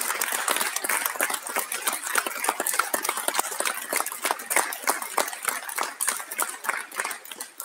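Applause from a roomful of people, many hands clapping densely and irregularly, dying away near the end.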